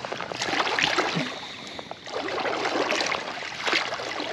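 River water sloshing and splashing as a wading angler moves through it and works a landing net, in two rough spells, the second starting about two seconds in.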